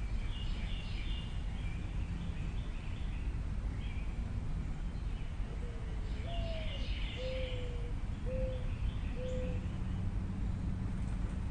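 Steady low outdoor rumble with small birds chirping high, briefly near the start and again about six seconds in. From about halfway, a bird gives a low cooing call of four notes: the first rises and falls, and the three shorter ones after it are lower.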